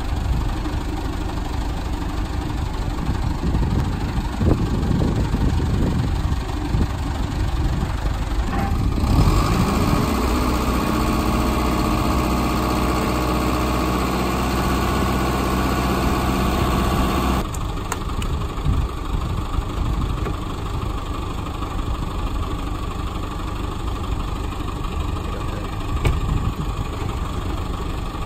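Flatbed tow truck's engine running steadily, with a few clanks. About a third of the way in, a louder steady hum with a hiss sets in as the hydraulic bed tilts. It stops abruptly about eight seconds later.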